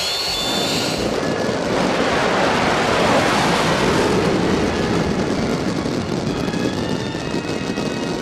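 Military jet aircraft flying over: engine noise swells over the first couple of seconds, peaks about three seconds in, then slowly eases.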